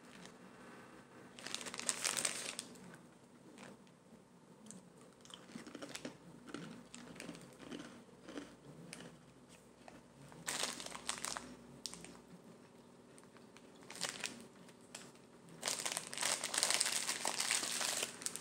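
Foil snack wrapper crinkling in bursts, about two seconds in, again after ten seconds and through the last couple of seconds. Between them come soft crunches of a butter wafer being chewed.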